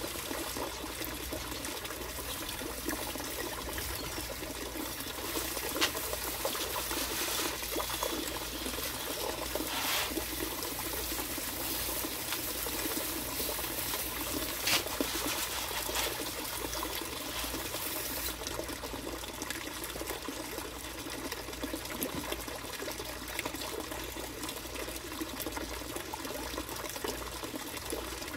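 Steady trickling water running throughout, with a few sharp ticks about 6, 10 and 15 seconds in.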